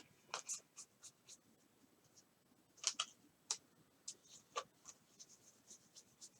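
Trading cards being flipped and slid through by hand, card stock rubbing and flicking against card stock in faint, irregular short strokes and clicks.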